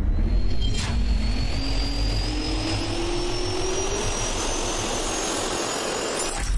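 Jet engine spooling up: a heavy low rumble under a turbine whine that climbs slowly in pitch. There is a short sharp click just under a second in.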